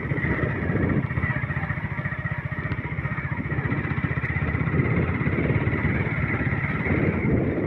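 An engine running steadily with a rapid, even pulse, cutting off abruptly near the end.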